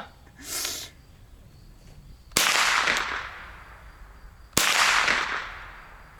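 Two shots from a .22 LR gun about two seconds apart, each sharp crack fading out in a long echo.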